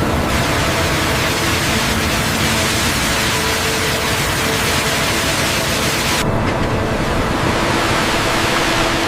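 Loud steady rushing of high-pressure water jets spraying on a fishing ship's deck, over a low hum of deck machinery; the sound shifts abruptly about six seconds in.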